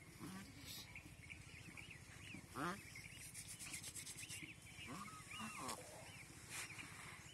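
Small birds chirping over and over, with a louder call that rises in pitch about two and a half seconds in and another animal call around five seconds in, over a steady low background hum.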